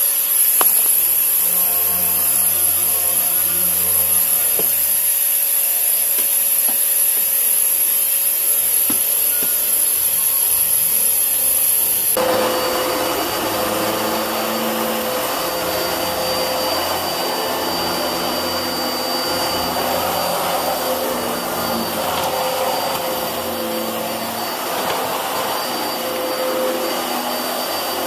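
Bagless vacuum cleaner running steadily with a high whine over its rushing airflow. About twelve seconds in, the sound changes abruptly: the whine drops out and a fuller rushing noise takes over.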